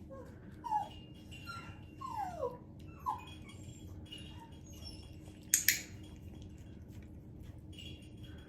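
Havanese dog whimpering: several short, high whines that fall in pitch over the first three seconds, then one sharp, loud sound about five and a half seconds in.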